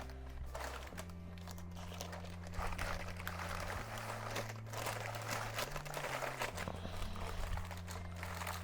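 Parchment paper crinkling and rustling as it is peeled and handled, over background music with a low bass line that changes note every second or so.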